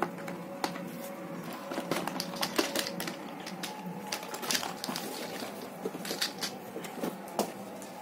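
Hard plastic toy elephants and their cardboard box being handled, giving irregular clicks and knocks as the toys are freed from the packaging, over a faint steady hum.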